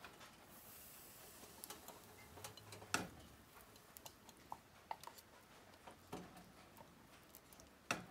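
Faint, scattered clicks and taps of a rubber spatula scraping sweetened condensed milk out of a tin can over a saucepan, with a sharper knock about three seconds in and another near the end.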